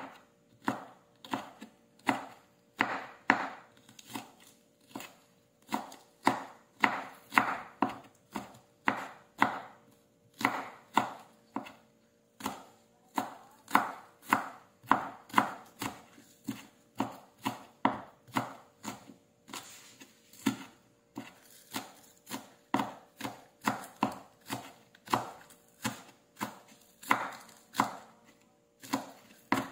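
Chef's knife slicing spring onions on a wooden cutting board: a steady, even run of blade knocks on the board, about two to three cuts a second.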